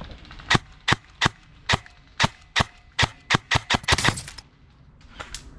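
Airsoft gun firing single shots in quick succession: about a dozen sharp cracks over three and a half seconds, coming faster toward the end, then two more after a short pause.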